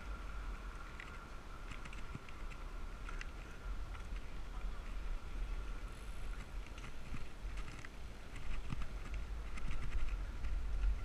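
Wind rumbling on the microphone of a bike-mounted action camera riding among a group of cyclists. Scattered light ticks and clicks come from the bicycles around it, bunched in several runs.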